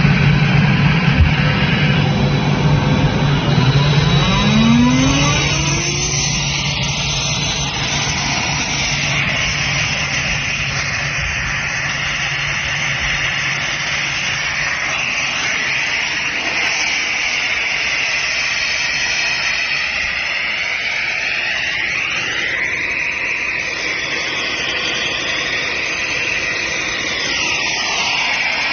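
Gardner Denver Champion 40-horsepower rotary screw air compressor running just after start-up: a loud low hum from the electric motor, then a short rising whine about five seconds in, settling into a steady rushing run.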